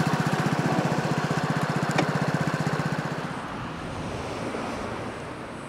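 Motor scooter engine running at idle with an even, fast pulsing beat, then dying away about three seconds in as it is switched off. A single sharp click comes about two seconds in.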